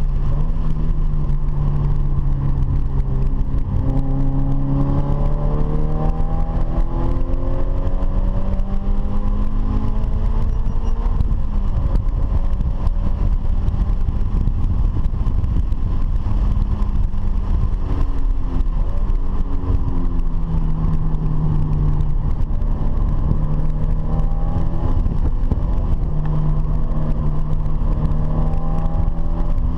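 A vehicle's engine heard onboard, its note climbing in pitch as it accelerates twice, with steady droning stretches between. A constant low wind and road rumble runs underneath.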